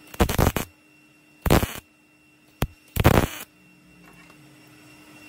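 MIG (wire-feed) welder laying short tack welds on a thin sheet-metal rust-repair patch: three short bursts a little over a second apart, with a single sharp click between the second and third.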